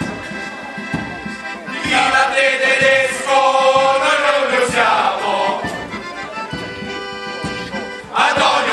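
A group of men singing a traditional song together to accordion accompaniment, the voices swelling loud in the middle and again near the end.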